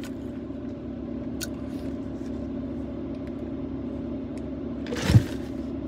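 Steady low hum of an idling car heard inside the cabin, with a short sip through a straw about five seconds in.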